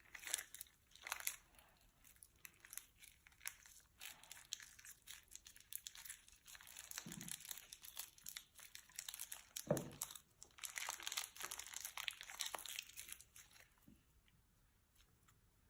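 Slime being handled and filled into a plastic bag: crinkling of the plastic with sticky crackling and clicks, and a couple of soft low squelches. The sound dies down near the end.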